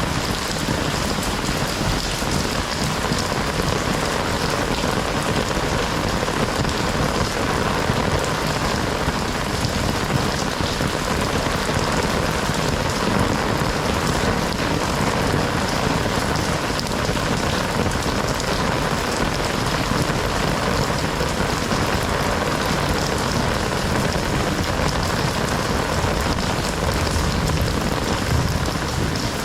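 Heavy rain falling steadily, pattering on surfaces as a dense, even hiss.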